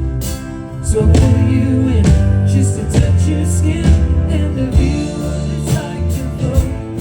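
Live band music with a strong bass line and a steady beat, drum or cymbal hits falling about once a second.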